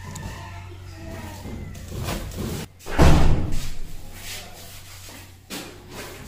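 A single heavy slam or thud about three seconds in, the loudest sound here, over a low steady hum.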